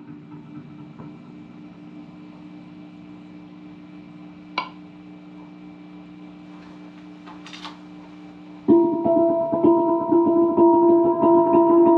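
A quiet steady low drone, then about three-quarters of the way in a handpan comes in loudly, struck by hand in quick succession, its ringing metallic notes sustaining over one another.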